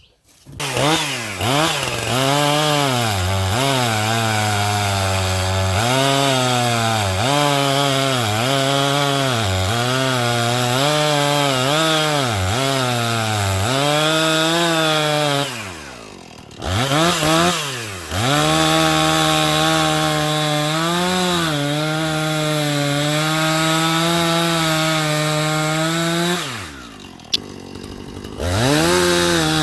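Two-stroke chainsaw running at high revs, its pitch dipping and recovering about once a second as it cuts wood. The engine drops back to a quieter idle twice, about halfway through and near the end, then revs up again.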